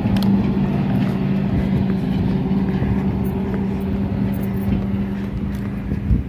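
A motor vehicle's engine idling: a steady low hum that weakens near the end.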